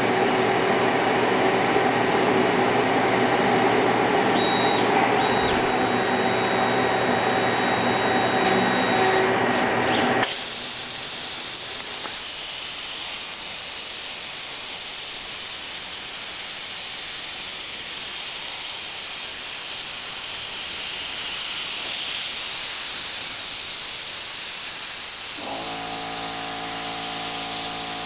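ESAB 875 plasma cutter running loudly with a steady hum, which cuts off suddenly about ten seconds in. The plasma torch then cuts thin sheet metal with an even hiss. Near the end, a steady whine of several tones joins the hiss.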